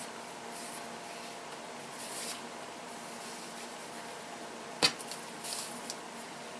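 Soft rustling of fabric binding being handled and stretched out on a cutting table, with a single sharp click a little before five seconds in.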